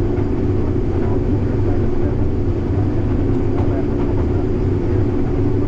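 Steady, unchanging drone of harvest machinery, an engine running at constant speed.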